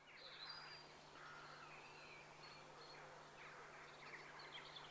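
Faint outdoor ambience with distant birds chirping and calling now and then, over a low steady hum.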